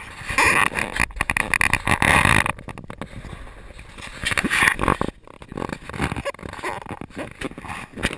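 Close handling noise from an action camera being moved about: rubbing and scraping against the mic, with irregular knocks. It is dense for the first couple of seconds, then thins to scattered knocks and scrapes.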